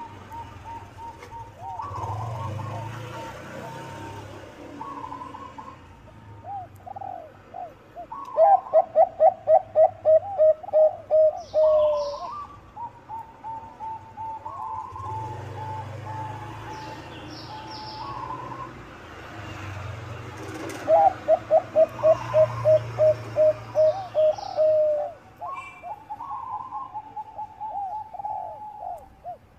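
Zebra dove of the Bangkok perkutut type singing: soft coos, then twice a loud run of rapid, evenly spaced notes lasting a few seconds, each closing on a held note.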